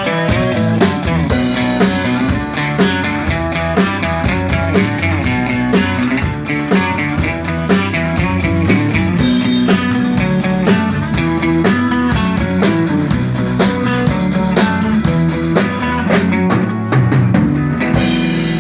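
Rock band playing live: electric guitar, bass and drum kit in an instrumental passage of the song.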